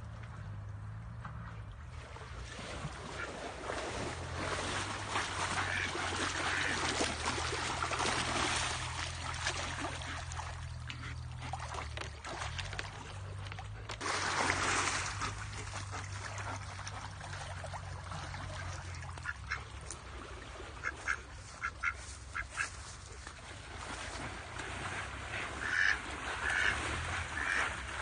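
Ducks quacking in clusters of short calls in the second half, over splashing, rushing stream water with one loud splash about halfway through. A faint steady low hum runs underneath.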